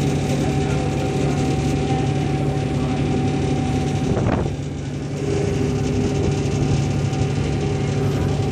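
Ferry engine running with a steady low hum and drone. About halfway through there is a short sharp noise, and the drone dips briefly before resuming.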